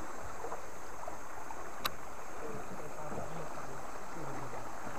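Steady outdoor river ambience, an even hiss of moving water and wind, with a single sharp click about two seconds in.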